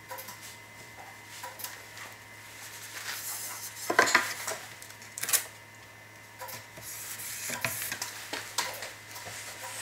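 Blue tape crackling as it is pulled and rubbed down along a thin wooden laminate strip, with light clicks and knocks as the strip is handled and flexed on the bench; the sharpest clicks come about four and five seconds in.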